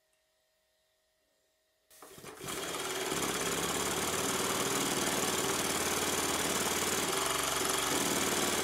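Near silence for about two seconds, then a Stuart triple-expansion model steam engine starts and quickly comes up to speed. It runs fast and steady, a rapid even beat from its three cylinders with steam hissing.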